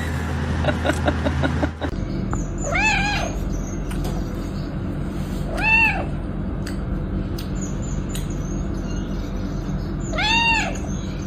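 Cat meowing three times, a few seconds apart, each meow rising then falling in pitch, over a steady background hum. It is preceded by a quick run of short clicks and chirps in the first two seconds.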